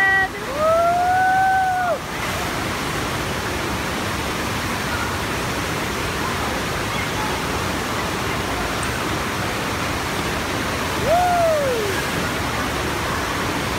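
Steady rush of water pouring over the ramp of an American Wave Machines indoor standing-wave surf pool. A high voice calls out with a brief arching whoop near the start, and again about eleven seconds in with a call that falls in pitch.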